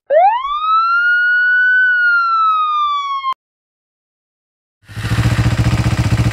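Police car siren sounding one long wail, rising quickly and then falling slowly, cutting off suddenly after about three seconds. About a second and a half later a steady, fast-pulsing engine buzz starts.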